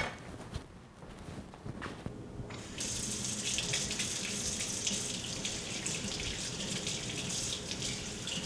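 Kitchen faucet running into a copper sink while hands are rinsed under the stream. The water comes on about two and a half seconds in and then runs steadily as a bright hiss.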